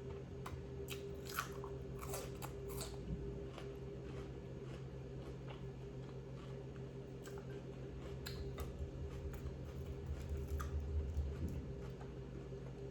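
Close-up chewing and biting on crunchy food, with crisp crackles clustered about one to three seconds in and softer chewing after, over a steady low electrical hum.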